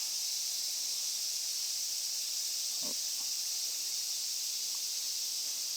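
Steady, high-pitched insect chorus droning without a break, crickets or similar insects around a pond.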